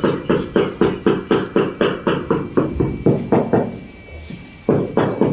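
Mallet knocking on a large marble floor slab in quick, even strokes, about five a second, bedding it down into the mortar to set it level. The knocking stops for about a second near the end, then starts again.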